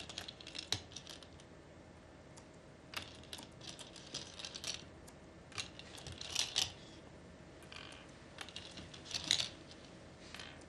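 Go stones clicking against a wooden board and each other in scattered clusters as players move them around the finished position, counting territory at the end of the game.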